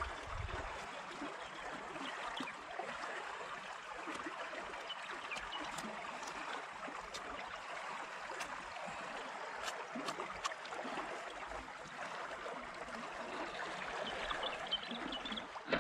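Shallow water flowing steadily along a small concrete irrigation canal, a continuous trickling rush, with a few faint scattered ticks over it.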